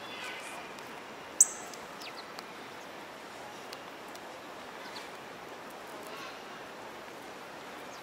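House sparrows giving faint scattered chirps over a steady hiss of park and city background. About a second and a half in, one sudden, sharp, high-pitched sound close by stands well above everything else.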